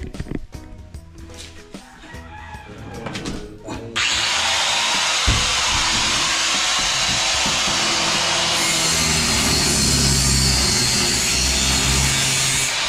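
Faint clicks and knocks, then about four seconds in a bladed power tool starts suddenly and cuts steadily with a loud, even hiss.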